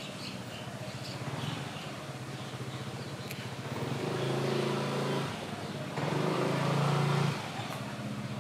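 A small engine running steadily. It grows louder twice in the second half, its pitch stepping up around the last loud stretch.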